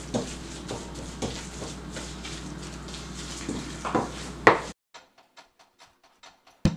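Wooden spoon stirring and scraping a thick grated-yuca batter in a stainless steel bowl, with two sharper knocks about four seconds in. The sound then cuts out abruptly to near silence for about two seconds.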